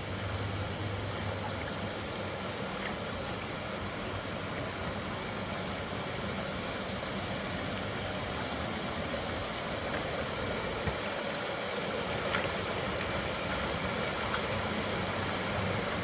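Waterfall pouring steadily into a creek pool: an even, unbroken rush of falling water, with a couple of faint clicks.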